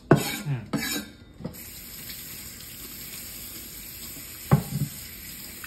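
Kitchen faucet turned on about a second and a half in, water running steadily into a stainless steel sink as a chef's knife is rinsed under the stream. A short knock comes about three seconds after the water starts.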